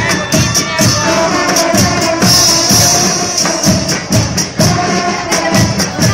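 A banda de guerra playing a march: bugles holding sustained notes over a steady beat of snare and bass drums with cymbal crashes.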